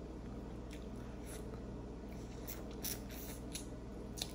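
Faint scattered clicks and small wet mouth sounds of someone eating boiled shrimp, over a steady low hum.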